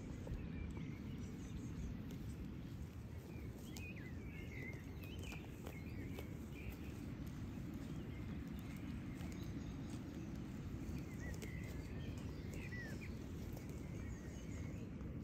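Outdoor meadow ambience: a steady low rumble with small birds chirping faintly in two short spells, and scattered faint clicks.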